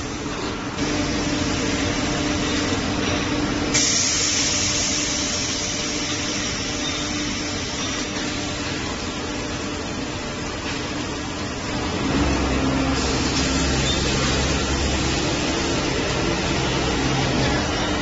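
Machinery of a short-cycle melamine laminating hot press line running: a steady mechanical din with a hum, a high hiss from about four seconds in to about thirteen, and a louder, deeper hum joining about twelve seconds in.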